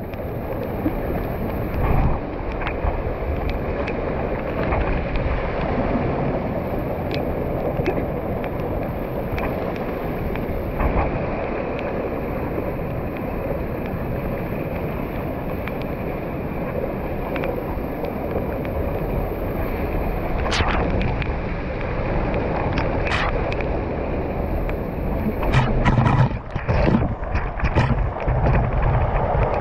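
Water gushing from a spout and down a rock face, splashing steadily onto stone and onto a person bathing under it. Sharper splashes and spatters come in the last third.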